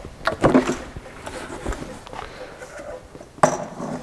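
Cowling of a Parsun 40 outboard motor being unlatched and lifted off: a few sharp clicks and knocks, the sharpest about three and a half seconds in.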